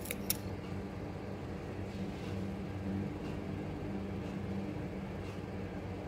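Steady low mechanical hum, with two sharp clicks right at the start.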